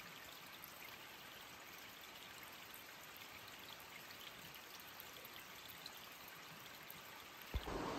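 A small, shallow forest creek trickling steadily over stones, faint and even. Near the end a sharp click is followed by a sudden louder rush of noise.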